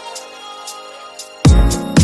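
Electronic dance-pop music: a quiet held chord with light high ticks, then a full beat with a heavy kick drum and bass comes in about a second and a half in.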